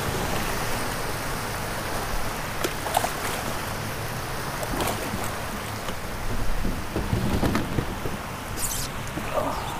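Wind rumbling on the microphone over water lapping and splashing against the kayak's hull and outrigger float, with a few light knocks and a short splashy hiss near the end.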